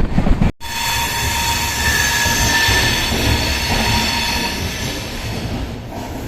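Express train running on the rails, its wheels squealing in several high, steady tones over a noisy rumble that slowly fades. Before a sudden cut about half a second in, the sound is a low rumble buffeted by wind.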